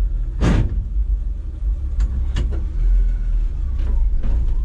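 Steady low rumble of a 1970 Chevy C10's straight-six engine and road noise inside the cab while driving, with a short loud rasp about half a second in and a few sharp clicks. The steering column grinds as the wheel is turned, a noise the owner says has always been there.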